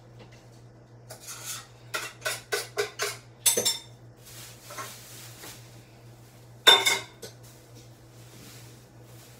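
Dishes, pots and kitchen utensils clattering while cooking is set up. There is a quick run of clinks and knocks, then one loud clatter about two-thirds of the way through, over a steady low hum.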